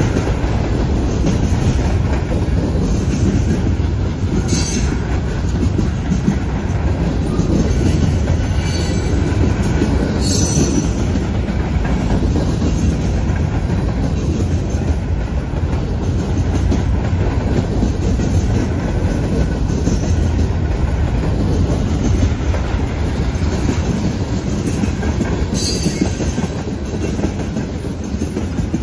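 Freight cars of a passing train rolling by close at steady speed: a continuous heavy rumble of steel wheels, clacking over the rail joints and junction switch, with a few brief high-pitched wheel squeals.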